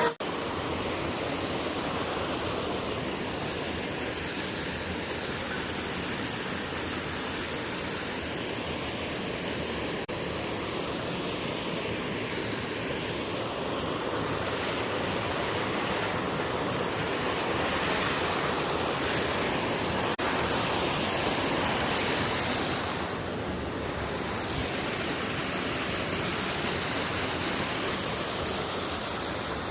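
Steady loud rushing noise with a hissy top and slowly swirling tone, like surf or fast-running water, dipping briefly about 23 seconds in and cutting off suddenly at the end.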